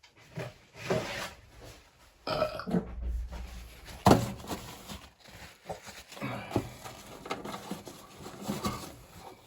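A person gives a long, loud burp about two seconds in. Around it is the irregular scraping and rustling of a wet tissue scrubbed around the inside of a microwave, with a sharp knock about four seconds in.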